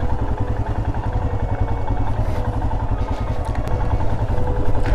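Royal Enfield Himalayan's single-cylinder engine running steadily as the motorcycle rolls down a hill road, heard from the rider's seat with low wind rumble on the microphone.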